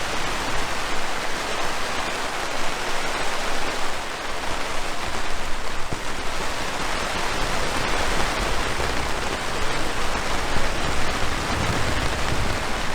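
Steady rain hissing on the fabric roof of a Clam Venture pop-up screen shelter, heard from inside.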